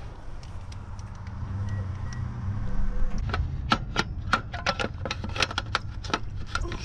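Irregular sharp clicks and small clatter of plastic and metal as a distributor cap and its wiring connectors are handled and fitted back on a 1980s Chevrolet Suburban engine, thickening from about halfway through. A low steady rumble lies underneath.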